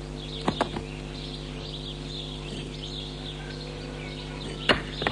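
Birds chirping in the background over a steady low hum, with a few sharp knocks of bricks being handled, two about half a second in and another pair near the end.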